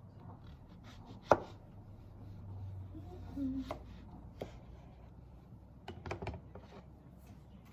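Kitchen knife chopping food on a cutting board in irregular strokes, the sharpest knock a little over a second in and a quick run of cuts around six seconds.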